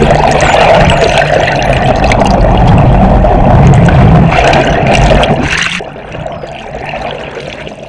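Underwater sound beside a moving boat: a dense rush of water with a low hum from the boat's engine and propeller, with many short clicks scattered through it. The level drops sharply about six seconds in.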